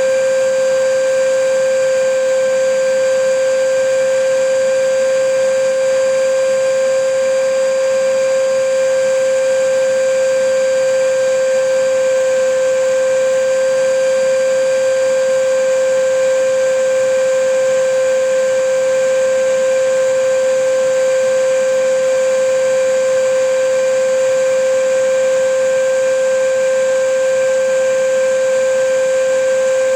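Vacuum cleaner running steadily: a constant motor whine over an even rushing hiss, unchanging in pitch and loudness.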